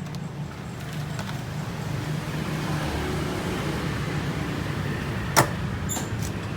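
Old Sanyo washing machine running with a steady low electric hum, and one sharp click about five seconds in.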